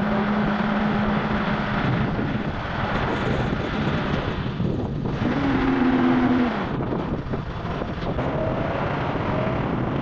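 Strong wind blowing and buffeting the microphone, a dense steady rush with deep rumble. A low steady hum sounds near the start, and a short higher tone rises slightly around the middle.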